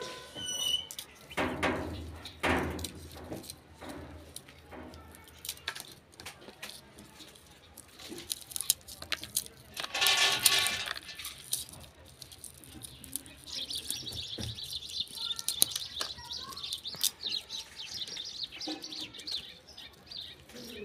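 Birds chirping and twittering, with scattered light clicks and crackles of garlic skins being peeled by hand. There is one brief, louder high call about ten seconds in.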